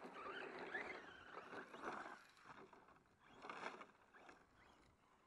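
Faint whine of a radio-controlled short-course truck's electric motor, rising and falling in pitch as it speeds up and slows, with a few short bursts of noise about two and three and a half seconds in.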